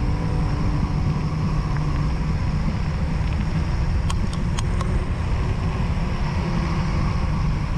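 Wind buffeting the camera microphone and tyres rolling on asphalt as an e-mountain bike coasts downhill: a steady low rumble, with a few light clicks between about four and five seconds in.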